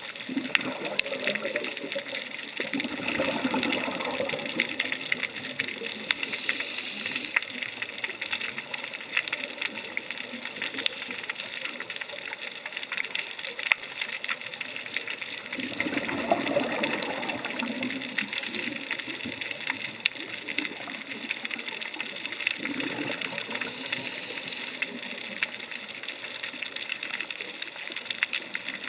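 Underwater sound of a scuba diver breathing through a regulator: three gushes of exhaled bubbles, near the start, about halfway and a few seconds later, over a steady crackle.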